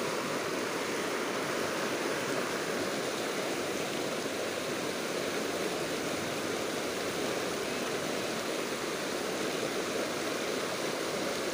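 Shallow rocky river running fast over stones in small rapids: a steady rush of water.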